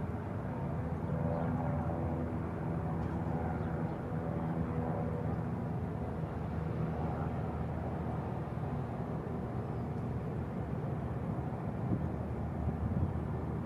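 Steady low engine rumble of a vehicle running, with no rise or fall in pitch.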